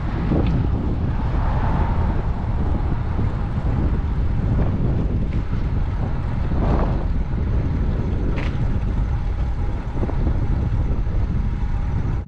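Wind buffeting the microphone on a moving bicycle: a steady low rumble, with a few faint brief higher sounds over it.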